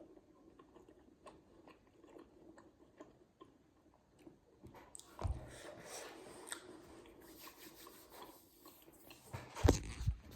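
Close-up chewing and small wet mouth clicks of someone eating steamed vegetable momos. The sounds grow louder about halfway through, with a soft low thud there and another near the end.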